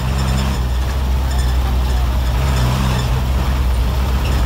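1990s Mitsubishi engine of an old medium bus running under way, heard from inside the cab: a loud, steady low drone whose note shifts slightly about half a second in.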